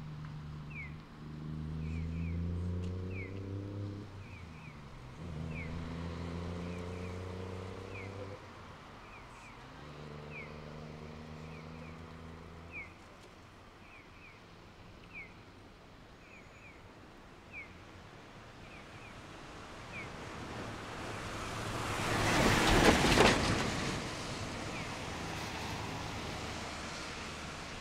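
A road vehicle's engine pulls away and climbs in pitch through three gears. Later another vehicle passes close, swelling to a peak about twenty-three seconds in and fading. Short high chirps repeat through the first part.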